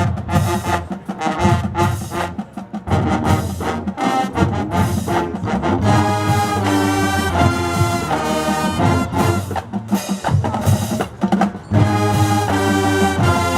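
High school marching band playing, brass (trumpets and trombones) over drums in a loud full-ensemble passage.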